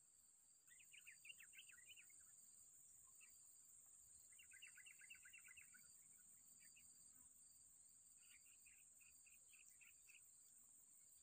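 Faint outdoor ambience: three short bursts of quick bird chirps over a steady, high-pitched insect drone.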